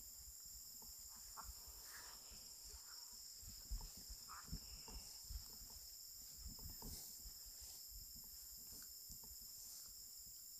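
Steady high-pitched chorus of night insects such as crickets, with soft rustling and scattered footfalls through swamp grass.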